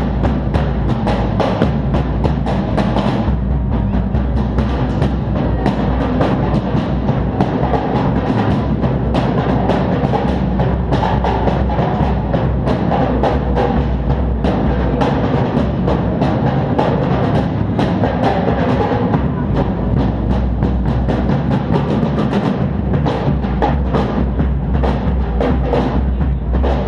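Drums played continuously in fast, dense strokes with deep low drums sounding underneath, picked up by a GoPro HERO3 Black camera's built-in microphone.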